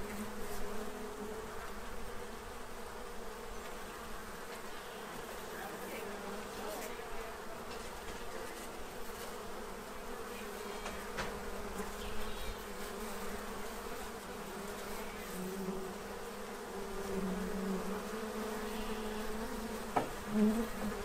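A crowd of honey bees buzzing steadily, a low hum with a higher overtone, swelling louder now and then as single bees fly close, most of all in the last few seconds.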